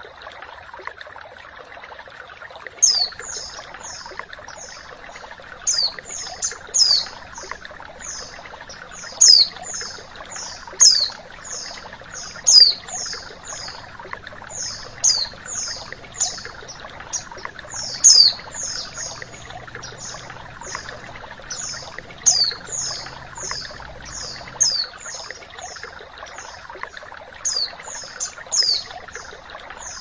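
Female white-eye (pleci) calling in short, high, downward-sweeping chirps, grouped in quick clusters that start about three seconds in and repeat every second or two, over the steady rush of flowing water.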